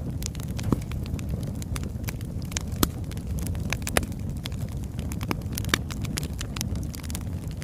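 Wood fire burning: logs crackling with irregular sharp pops over a steady low rumble of the flames.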